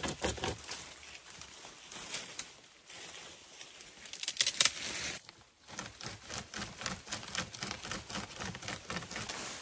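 Rusty, unoiled hand chainsaw (pocket chain saw) rasping back and forth through a branch in quick strokes, with twigs and leaves rustling. The loudest burst comes about four and a half seconds in, with a short pause after it before the sawing resumes.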